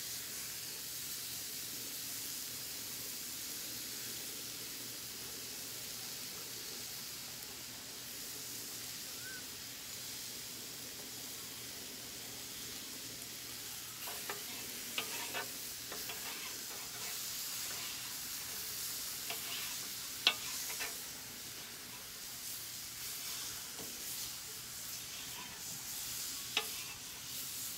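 Steaks, chicken and fried rice sizzling steadily on a hot flat-top griddle. About halfway through, metal utensils start clicking and scraping on the griddle surface, with one sharp clack about two-thirds of the way in.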